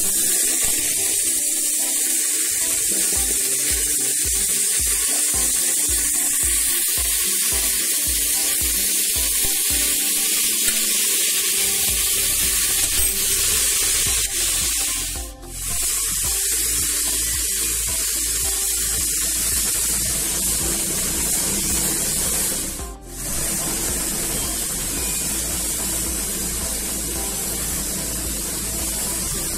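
Chopped vegetables sizzling in hot ghee in a pressure cooker as they roast: a steady, loud hiss. A low steady hum joins about twelve seconds in.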